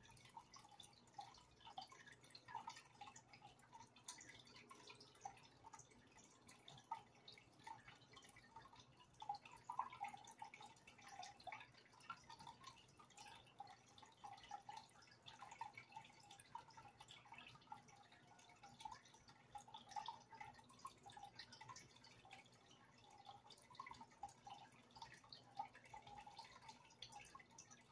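Faint aquarium water noise: soft, irregular plinking blips of water, several a second, over a low steady hum.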